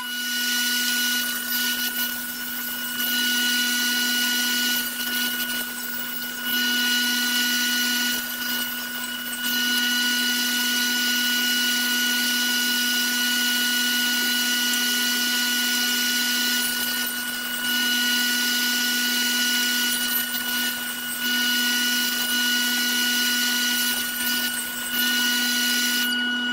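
Electric table saw running with a steady high motor whine, cutting a groove in a wooden board; the level dips briefly several times as the blade works through the wood.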